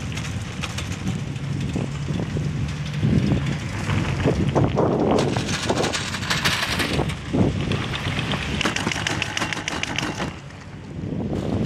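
Three-seat chairlift passing a tower: the chair's grip and the haul rope run over the tower's sheave rollers in a rapid clatter of clicks and rumbles that builds in the middle and fades as the chair moves on, over steady wind on the microphone.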